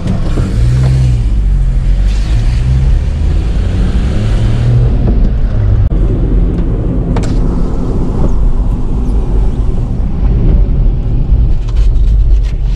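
Engine and road noise of a part-time 4WD vehicle, heard from inside its cab as it drives slowly through a toll plaza. The engine note shifts in pitch during the first few seconds, and there is a single sharp click about seven seconds in.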